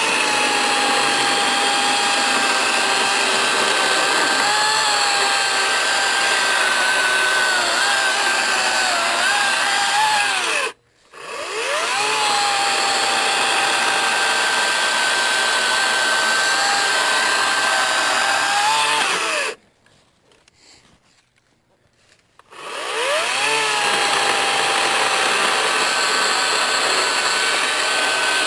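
Echo DCS-5000 56V battery chainsaw cutting through logs: the electric motor spins up to a steady high whine, dipping in pitch as the chain loads in the wood. It stops twice, briefly about ten seconds in and for about three seconds near twenty seconds in, spinning up again each time.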